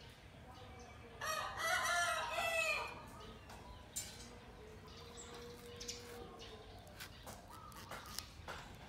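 A rooster crows once, about a second in: a single call lasting about a second and a half. A few faint clicks follow.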